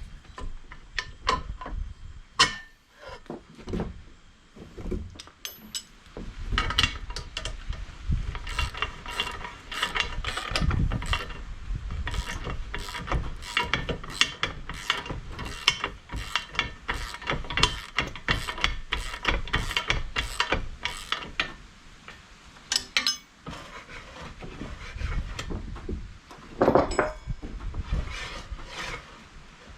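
Hand ratchet wrench clicking in a steady run of strokes, about two clicks a second, as bolts are tightened, with scattered metal knocks and a heavier clunk near the end.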